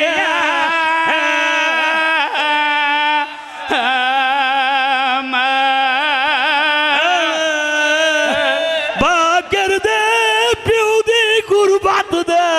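A male voice singing a long, melismatic line of a mourning lament, holding notes with a wide vibrato. It pauses for breath briefly about three seconds in and climbs higher in pitch in the last few seconds.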